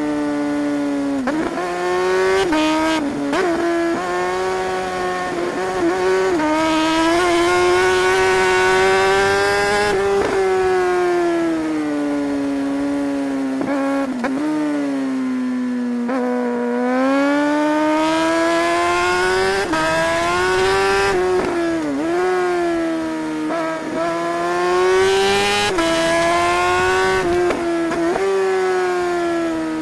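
Suzuki GSR 600 inline-four motorcycle engine being ridden, its note rising and falling with the throttle. There are brief dips in the revs at gear changes. Midway the pitch falls slowly as the bike slows, then climbs again through several quick upshifts.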